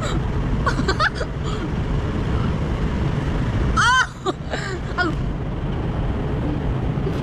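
Steady low rumble of a car driving, heard from inside the cabin. Brief voices come through about a second in, and a loud high-pitched vocal exclamation about four seconds in.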